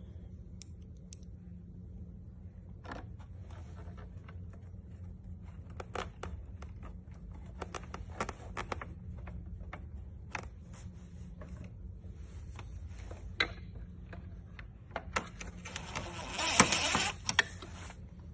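Hands handling a head unit's wiring harness and plastic parts: scattered clicks, rattles and rustling, with a louder burst of rustling lasting under a second near the end, over a steady low hum.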